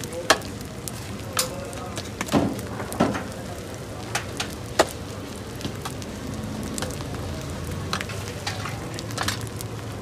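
Food sizzling steadily on a flat griddle (tawa), with a scatter of sharp clinks and taps from steel utensils and a bowl, most of them in the first half.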